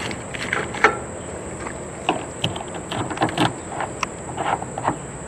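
Scattered light metallic clicks and taps as hand tools and a key are handled, the key going into the truck door's newly installed lock cylinder. A steady faint high whine runs underneath.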